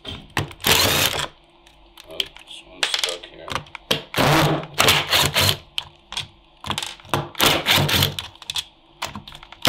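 Power driver with a Torx bit spinning screws out of a DeWalt 18V battery pack's plastic case, in a series of short bursts with brief pauses between them.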